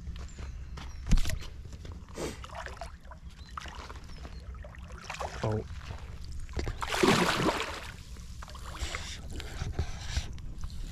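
Water splashing and sloshing as a hooked sturgeon thrashes at the surface beside a landing net, with the biggest splash about seven seconds in. A sharp knock comes about a second in.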